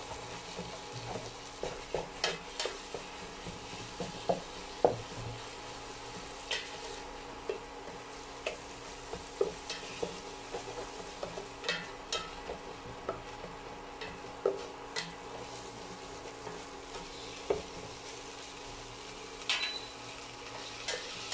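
Corned beef sizzling as it fries in a stainless steel pot while a black slotted turner stirs it, scraping and knocking against the pot's bottom and sides in sharp, irregular clicks.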